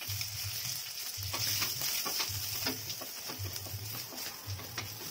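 Onions sizzling in hot mustard oil in a brass kadhai, with a spatula stirring and scraping against the pan a few times. A low hum pulses underneath about once a second.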